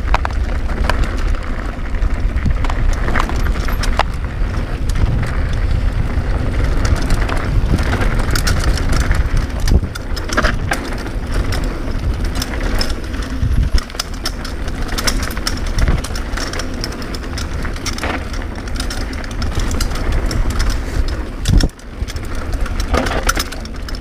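Cannondale Claymore mountain bike descending a gravel and dirt downhill trail at speed. Wind rumbles on the camera microphone, tyres crunch over loose stones, and the bike clatters and rattles over bumps, its chain slapping for want of a chain guide.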